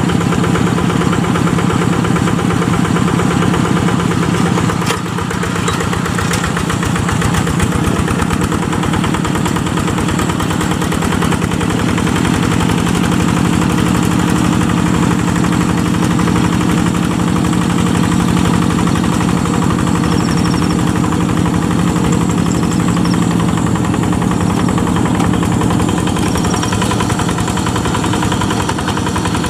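Yanmar single-cylinder diesel engine of a G1000 two-wheel hand tractor running steadily under load with a fast, even chugging, as the tractor pulls a moldboard plow through soft wet paddy soil.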